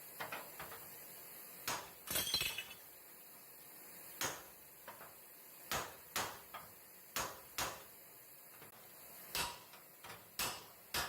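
Fender hammer striking a steel car frame rail backed by an anvil piece. About a dozen sharp metal blows land at irregular intervals, roughly a second apart, with a short ring after each. The blows are working the bent rail back into shape a little at a time.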